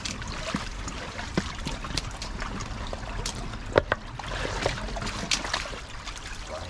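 Shallow brook water trickling and splashing, with a few sharp knocks and splashes from wading and stirring in the stream; the loudest knock comes nearly four seconds in.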